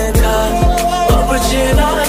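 Bollywood love-song mashup music: a steady beat with a low kick drum about twice a second under a held, wavering melodic line.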